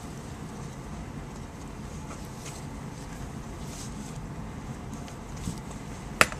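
Faint clicks of metal surgical instruments handling suture over a low steady background hum, with one sharp click just after six seconds in.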